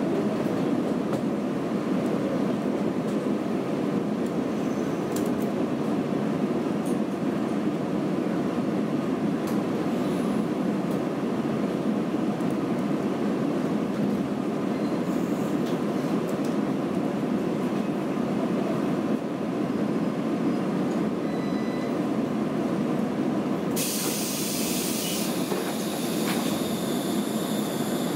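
A 115 series electric multiple-unit train, heard from inside its MT54-motored car, running along the line with a steady rumble of wheels and running gear. Near the end, a loud hiss comes in suddenly and continues.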